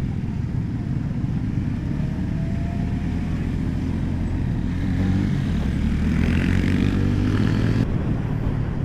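Motorcycle engine running under way, with wind and road noise; from about halfway through the engine pitch climbs as the bike accelerates.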